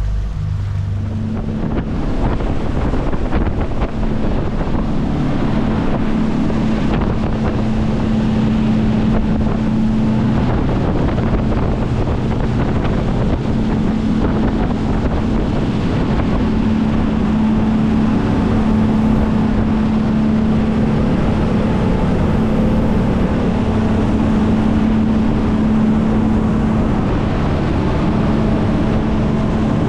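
Twin outboard motors on a center-console boat running at cruising speed: a steady drone with wind and water rush.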